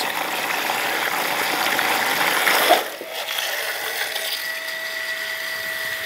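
Rule-Mate automatic bilge pump running submerged in water, its motor whirring and the water churning and splashing: its internal water-sensing switch has triggered it. Nearly three seconds in, the splashing stops and a steadier, thinner motor whine carries on as the pump runs out of the water.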